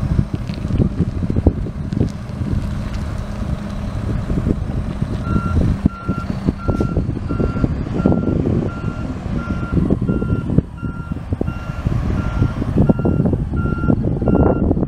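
Rear-loader garbage truck backing up: its diesel engine running with a low rumble, and from about five seconds in its reversing alarm beeping about twice a second.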